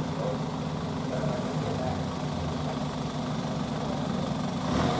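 A vehicle engine idling steadily, getting a little louder near the end.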